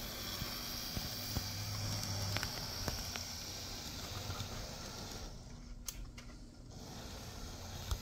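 Z-scale model diesel locomotive running around sectional track: a faint steady whir from its tiny motor with a few small clicks from the wheels on the rails.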